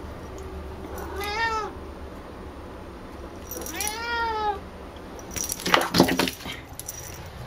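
A cat meows twice, two long calls that rise and then fall in pitch, its excited begging for a ball of brushed-out cat hair. About two thirds of the way in comes a quick flurry of loud clicks and knocks, the loudest part, as its paws scrabble on the wooden floor in a dash.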